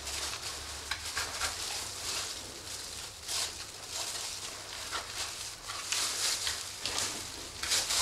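Boning knife cutting and scraping along bone through raw pork, with plastic-gloved hands handling the meat on a steel table: short, irregular scrapes and rustles over a steady hiss and low hum.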